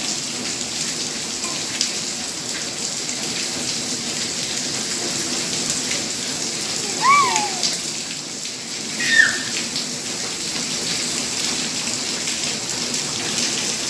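Steady rain falling on wet concrete, an even hiss of drops. Two short high cries sound about seven and nine seconds in.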